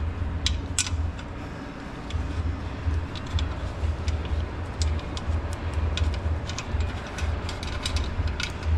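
Scattered light metallic clicks and clinks of hand tools and suspension parts being worked, over a steady low rumble of shop background.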